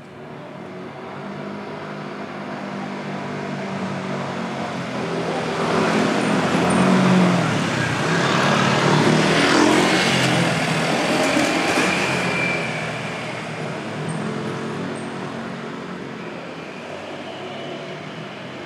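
A motor vehicle passing close by on a city street: its engine and tyre noise grow louder over several seconds, peak around the middle, then fade away.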